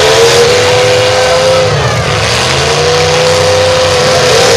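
Demolition derby car engines revving hard as the cars push against each other. The pitch climbs and holds, drops a little before two seconds in, then climbs again.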